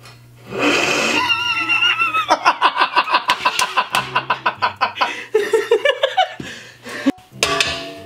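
A man laughing heartily in a fast, rhythmic run of ha-ha pulses that tails off after a few seconds, over a steady low hum.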